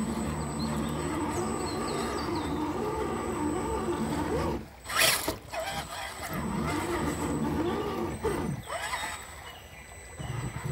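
RC crawler's electric motor and drivetrain whining, the pitch rising and falling as the throttle changes, with a short burst of hiss about five seconds in.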